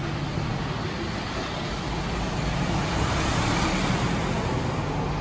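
A route bus's diesel engine running with a steady low hum and road noise, swelling louder about three seconds in and then easing off, as a bus pulls away or passes.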